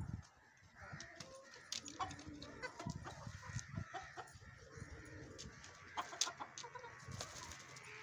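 Aseel chickens clucking faintly, with scattered sharp clicks.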